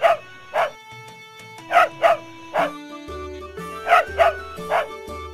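Dog barking, eight sharp barks in three clusters, over light background music whose bass line comes in about three seconds in.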